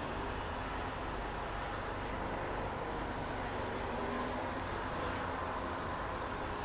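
Steady town-centre background noise with a low traffic hum, and a few short, faint, high chirps about halfway through and near the end.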